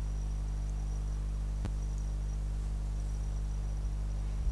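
A steady low hum with a faint, thin high whine above it, and one sharp click about a second and a half in.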